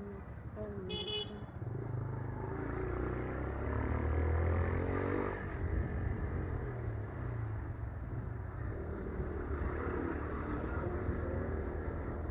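Motorcycle engine running under way. Its note rises for a couple of seconds in the middle and then drops sharply. A short horn beep sounds about a second in.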